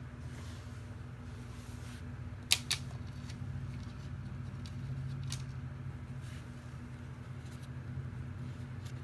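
Handling noises over a steady low hum: faint rustling and a few sharp clicks. Two clicks come close together about two and a half seconds in, the loudest sounds, and a weaker one follows about five seconds in.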